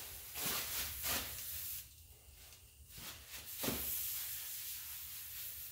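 Aerosol can of oven cleaner hissing as it is sprayed over a greasy engine, in bursts with a break about two seconds in.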